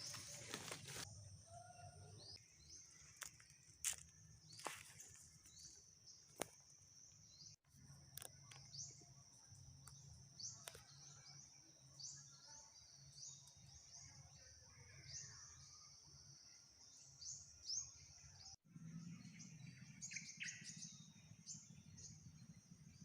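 Faint outdoor rural ambience: a steady high-pitched chirping runs throughout, made of many short repeated notes. A few sharp clicks or snaps come in the first several seconds, and the background cuts abruptly twice.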